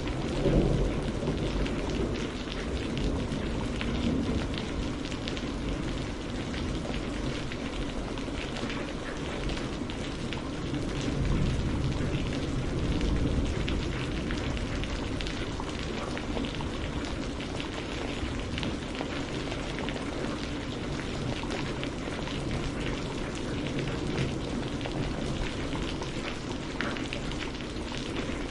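Steady rain with a dense patter of drops falling on a surface. A low rumble swells briefly about a second in and again around eleven to thirteen seconds.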